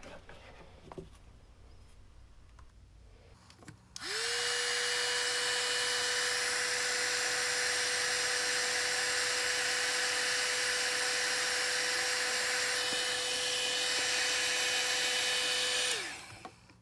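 A Drill Master heat gun is switched on about four seconds in: its fan spins up quickly to a steady whine over a loud rush of air. It runs for about twelve seconds while shrinking heat-shrink tubing on crimped wire terminals, then is switched off and the whine drops away.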